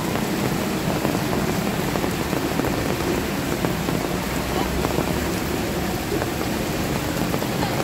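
Heavy rain falling steadily onto a flooded street, a dense, even hiss of drops on standing water.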